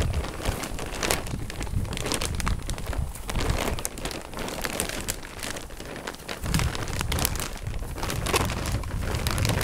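Rustling, crinkling and irregular clicking as rolled poultry netting is pulled out of a cardboard box and handled, over a low rumble.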